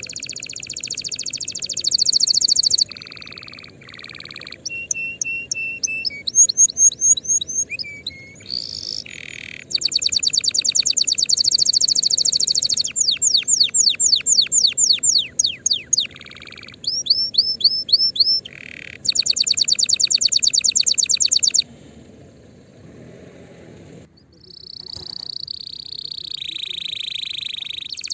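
Domestic canary singing a long song of quick high trills, rolls and runs of falling sweeps, switching to a new phrase every second or two and ending on softer, lower notes. It is a tutor song played for young canaries to learn from.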